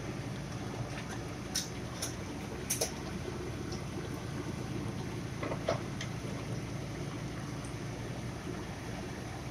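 Sliced luffa simmering in a frying pan of liquid, a steady bubbling sizzle, with a few light clicks and taps of a wooden spatula against the pan in the first six seconds.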